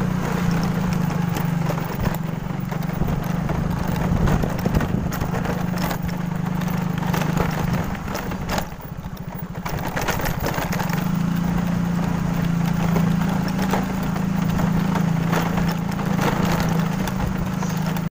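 Motor scooter's small engine running while being ridden. A little past the middle it drops to a slower, even putter for a couple of seconds, then picks up again.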